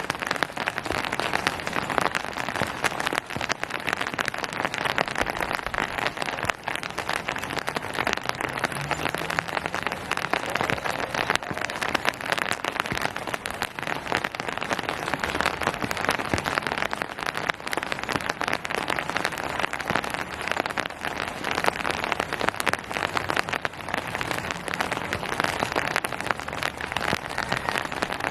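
Steady rain falling on hard surfaces, a dense even patter of many small drop ticks.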